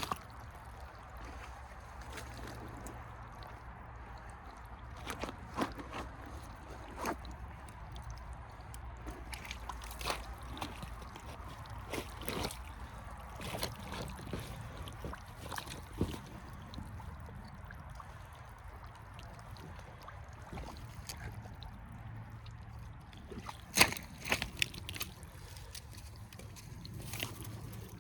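Rubber boots tramping through wet peat bog, sloshing and squelching in mud and water, with irregular sharp clicks and splashes, the loudest cluster near the end, over a steady low rumble.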